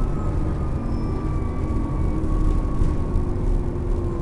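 Bus engine and drivetrain heard from inside the passenger saloon: a steady low rumble with a whine that slowly falls in pitch.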